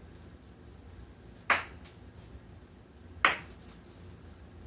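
Ping-pong ball striking a hard surface: two sharp clicks with a brief high ring, about two seconds apart.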